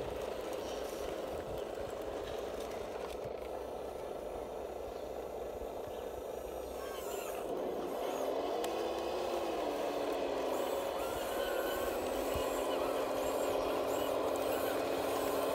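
Radio-controlled Cat D10T model bulldozer running and pushing sand, its drive giving a steady whine whose pitch rises and falls about eight seconds in.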